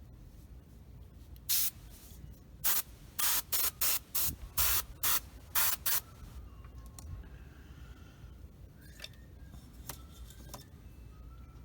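Airbrush hissing in about ten short, quick bursts of air over a few seconds, then stopping.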